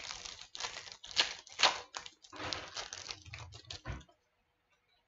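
Trading card pack wrapper being torn open and crinkled in the hands, a string of sharp rustling bursts that stops about four seconds in.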